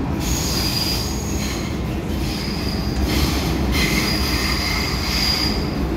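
MTR M-Train running in a tunnel, heard from inside the car: a steady low rumble with high, thin wheel squeals that come and go several times.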